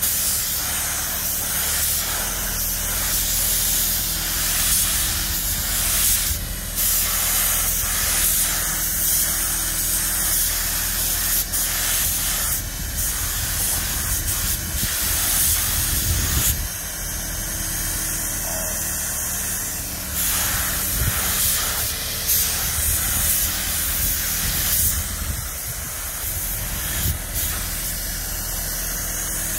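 Air-fed paint spray gun hissing as it sprays paint, breaking off briefly a few times, over a steady low hum.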